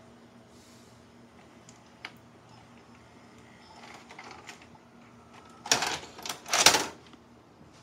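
VCR ejecting a VHS cassette: a faint steady motor whir with a light click of the mechanism, then two loud scraping rushes about six seconds in as the cassette is pushed out through the tape flap.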